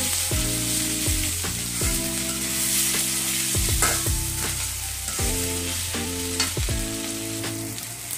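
Potato wedges frying in oil in a metal kadai, sizzling steadily while a flat metal spatula stirs and scrapes them around the pan. A couple of sharp knocks of the spatula on the pan come about four and six and a half seconds in.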